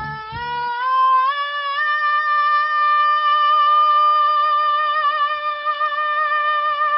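A teenage boy's singing voice in vocal practice: it climbs in three quick steps, then holds one long high note.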